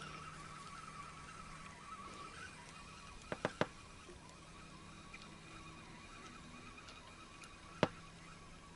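A faint steady hum fades away after about two and a half seconds. Then come three quick sharp clicks a little after three seconds in, and one louder click near the end, from the spinning rod and reel being handled in the boat.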